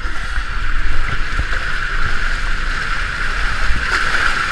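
Water rushing and a rider sliding down an enclosed water-slide tube, a steady rushing noise with low rumbling, heard through a GoPro's closed waterproof housing.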